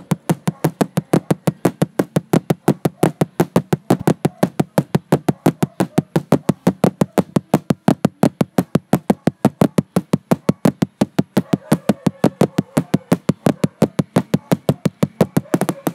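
Intro music built on a fast, steady percussive beat of about four or five hits a second.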